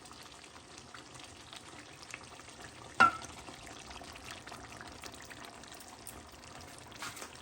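Oxtail fry bubbling and sizzling faintly in the pot, with one sharp clink about three seconds in.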